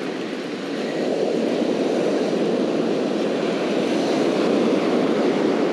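Steady roar of ocean surf breaking and washing up the beach, a little louder from about a second in.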